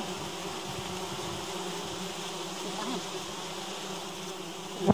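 Swarm of giant honeybees buzzing in a steady drone, with many bees in flight around the colony. A brief loud sound cuts in near the end.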